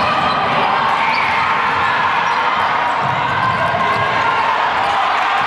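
Basketball dribbled on a hardwood gym floor during live play, over a steady background of crowd voices echoing in the gym.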